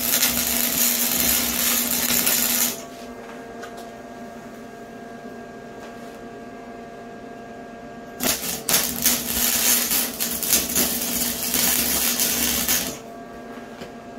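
Wire-feed welder arc crackling and sputtering on steel tubing in two runs, the first stopping under three seconds in and the second lasting about four and a half seconds from just past the middle. A steady electrical hum carries on between the runs.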